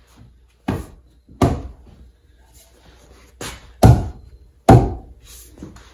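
Peeled log rails knocked into the joints of a log furniture frame: five heavy wooden knocks, the two a little past halfway the loudest, as the pieces are whacked to seat them.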